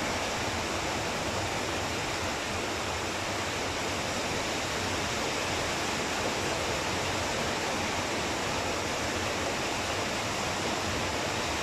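Steady, even hiss with no distinct knocks or clicks.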